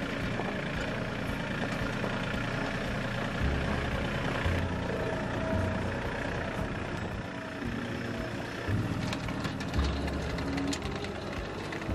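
Yanmar tractor's diesel engine running steadily as its rear-mounted rotary tiller spins and churns sandy loam soil. From about nine seconds in there is more clatter, as the blades dig in and throw soil and clods.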